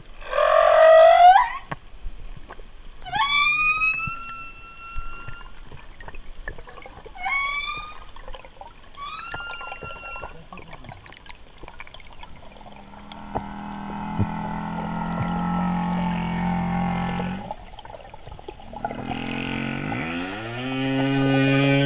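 Humpback whale calls: four short rising whoops with several overtones in the first ten seconds, then a long low moan about halfway through, and another rising call near the end.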